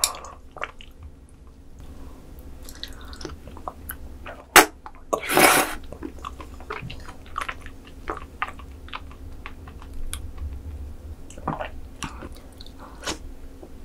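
Close-miked eating sounds of raw sea cucumber intestines (gonowata) taken off a ceramic spoon: wet slurps, chewing and small mouth clicks. A sharp click comes about four and a half seconds in, followed by a longer, louder slurp.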